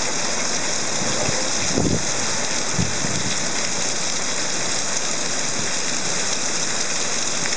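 Heavy rain pouring down steadily in a thunderstorm, a dense even hiss, with a couple of short low thumps about two and three seconds in.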